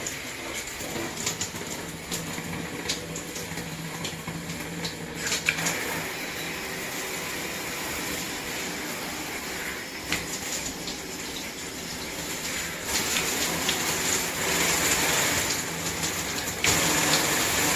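Water spraying from a handheld shower head: a steady hiss with scattered clicks, stepping up louder twice in the second half.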